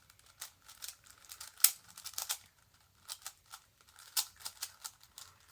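Megaminx puzzle being turned by hand: quick, irregular clicks of its layers turning, with one sharper click about one and a half seconds in and a short pause around halfway.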